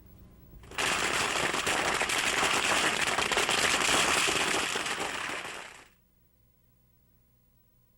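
A string of firecrackers going off in a dense, rapid crackle for about five seconds; it starts abruptly about a second in and dies away near the six-second mark.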